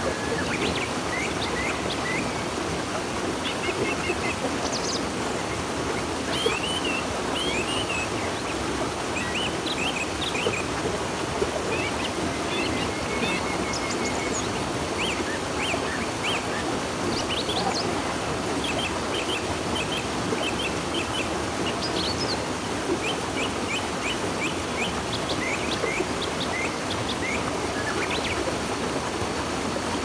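Steady rush of river water, with small birds giving many short, high chirps over it.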